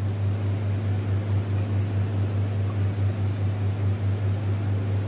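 A steady low hum with a hiss over it, loud and unbroken.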